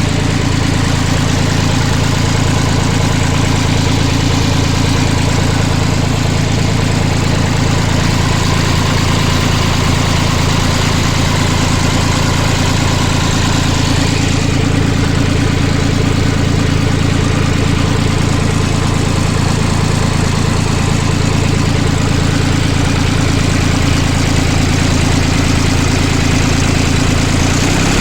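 International 484 tractor engine idling steadily.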